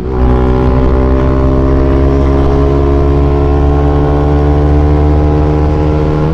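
Bajaj Pulsar NS200 single-cylinder engine running through an aftermarket Akrapovic exhaust, held at steady revs with a loud, even exhaust note.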